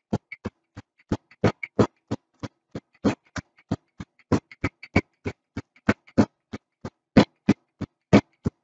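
Wooden rolling pin pounding graham crackers in a plastic zip-top bag on a countertop, crushing them to crumbs: sharp knocks, about four a second.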